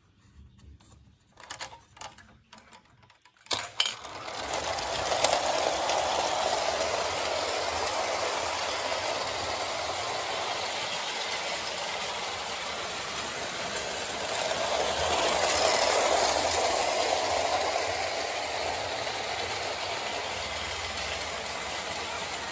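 A few clicks and knocks as the clockwork 4-4-0 locomotive is handled and set going, then, about four seconds in, the steady running noise of its clockwork motor and wheels on Hornby tinplate track, growing louder for a few seconds past the middle.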